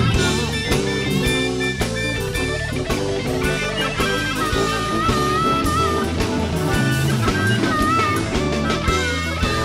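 Live blues band playing, with a guitar lead bending notes over bass and drums.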